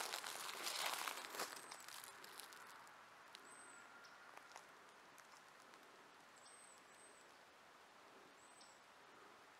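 Footsteps crunching through dry leaf litter for the first two seconds or so, then stopping. After that comes a quiet outdoor background with several short, high bird chirps scattered through the rest.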